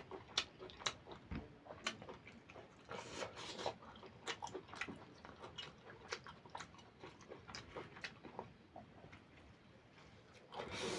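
Close-miked eating: wet chewing with irregular lip smacks and mouth clicks as a person works through mouthfuls of curry and rice.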